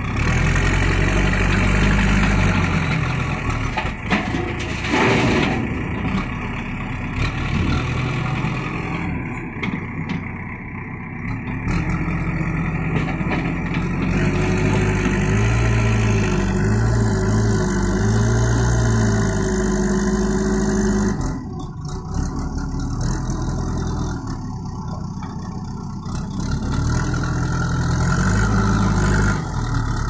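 JCB 3DX backhoe loader's diesel engine running and revving up and down as it works its front loader bucket through a load of soil, with a single knock about five seconds in.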